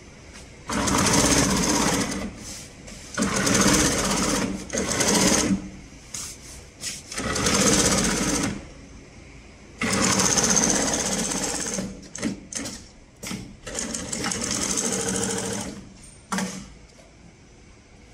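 HighTex 74420-25 long-arm double-needle walking-foot industrial sewing machine stitching heavy tarpaulin in about five runs of one to three seconds each, a fast, even needle rhythm. Between runs the machine stops briefly, leaving quieter gaps with scattered clicks.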